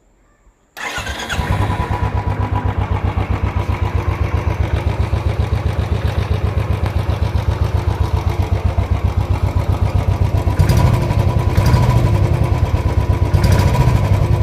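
Royal Enfield Bullet single-cylinder engine on its stock exhaust, starting about a second in and then idling with an even, steady thump. It picks up briefly twice near the end.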